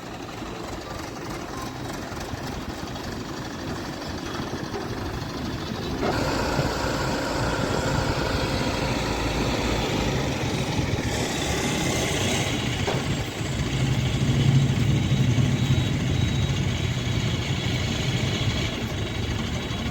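Diesel engine of a Hydra crane running steadily, revving up about six seconds in and again near the middle.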